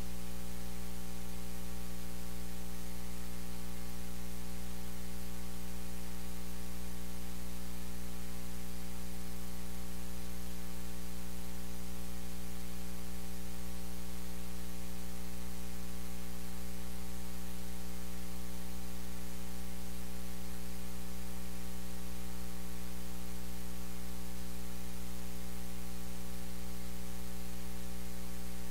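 Steady electrical mains hum with a layer of hiss, unchanging throughout; no other sound comes through.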